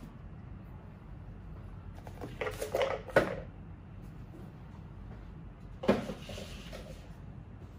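Handling noise from display products being picked up and put down on shelves and a table. A short rustle and clatter ends in a sharp knock about three seconds in, and a second knock comes about six seconds in.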